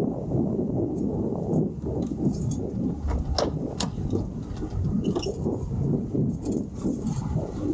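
Wind rumbling on the microphone of a boat underway, over the running of its twin Suzuki outboard motors, with a couple of sharp clicks about three and a half seconds in.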